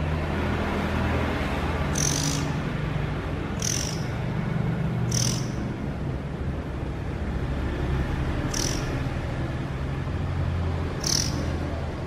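Fledgling Oriental magpie-robin giving five short, high-pitched cheeps, spaced one to three seconds apart, over a low steady rumble.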